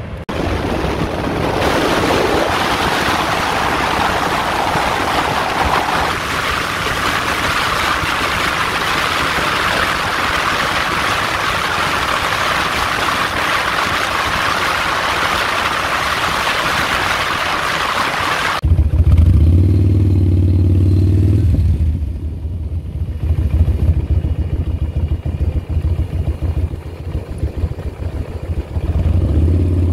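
Loud, steady rush of wind and road noise from a motorcycle at highway speed. About two-thirds of the way in it cuts to the motorcycle's engine, running low and loud, its note rising and falling and picking up again near the end.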